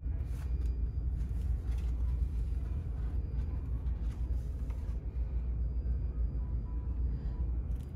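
Steady low rumble with faint rustles and clicks, the handling noise of a phone's microphone as the phone is held and moved about while filming.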